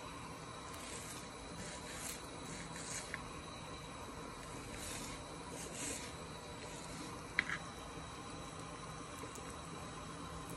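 Small kitchen knife slicing raw chicken on a wooden cutting board: quiet soft slicing and scraping, with a light knife tap on the board about three seconds in and a sharper double tap about seven seconds in, over a faint steady hum.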